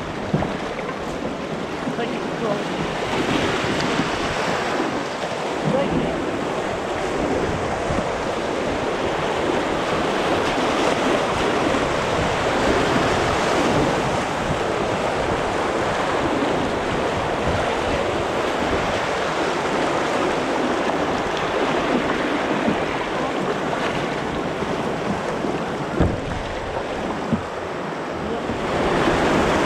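White-water river rapids rushing around a tandem open canoe as it is paddled downstream: a steady, unbroken noise of moving water. Two short sharp knocks stand out, one just after the start and one near the end.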